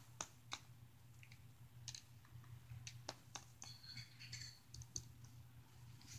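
Faint scattered clicks and taps of small plastic toy figures being handled and moved on carpet, over a low steady hum.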